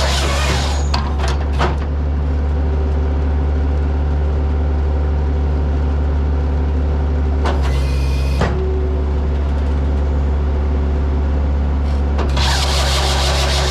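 Bobcat T190 skid steer's diesel engine running steadily under a firewood processor, with a harsh hiss that comes and goes: briefly at the start, for about a second midway, and again near the end, with a few sharp clicks.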